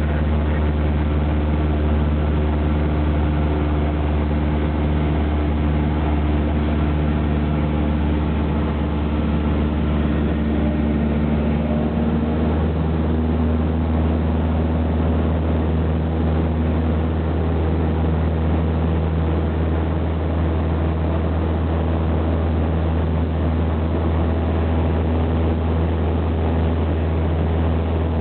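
Cessna 172's piston engine and propeller running steadily in cruise flight, heard as a loud drone inside the cabin; its note shifts slightly about twelve seconds in.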